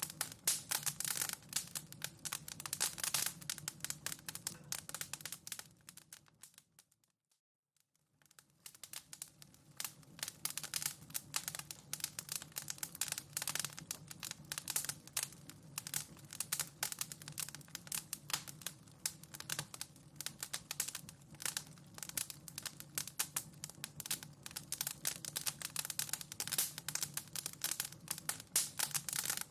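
Wood fire burning in a fireplace, crackling with dense, irregular pops and snaps over a low steady hum. About seven seconds in it fades briefly to silence, then the crackling comes back.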